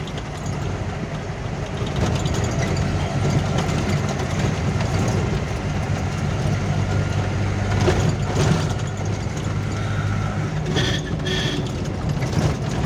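Vehicle engine running steadily under load, with a few knocks and rattles about two-thirds of the way in and brief squeaks near the end.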